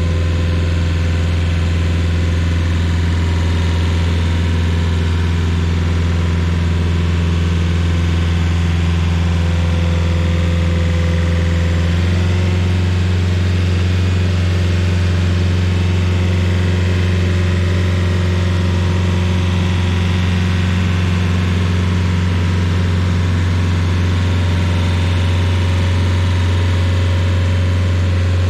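Rayco RG50 stump grinder's engine running steadily at close range, its tone shifting slightly about twelve seconds in.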